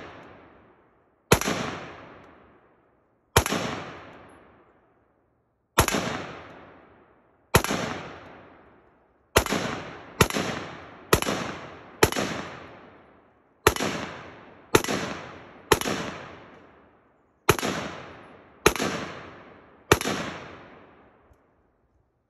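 A 5.56 rifle fired as single shots at an unhurried, uneven pace, fourteen in all, each sharp crack followed by a long echo that fades over a second or so. Near the middle several shots come in quicker succession, under a second apart.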